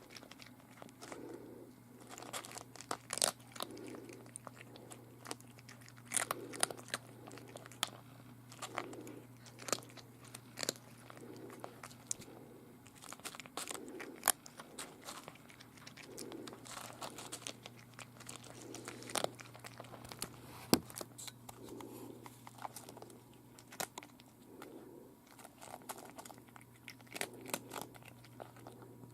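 A cat eating dry food: irregular crunching and chewing, with sharp clicks as it bites, and a softer low sound repeating about once a second.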